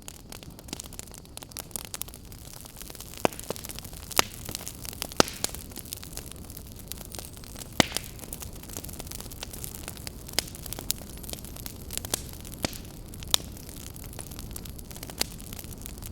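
Wood campfire crackling: irregular sharp pops and snaps over a steady low rumble and hiss, with the loudest pops spread through the first half.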